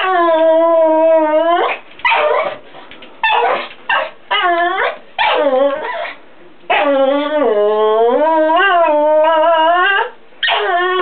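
Small dog whining and yowling in frustration: a long, drawn-out whine, several short whines and yips, then another long wavering whine of about three seconds, with a new one starting near the end.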